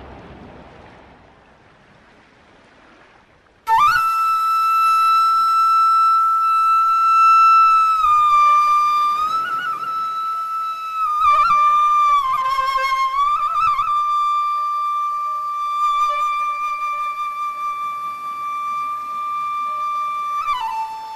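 After a few seconds of quiet, a flute comes in suddenly on a long high held note, then plays slow sustained notes with a few short trills, stepping down to a lower note near the end.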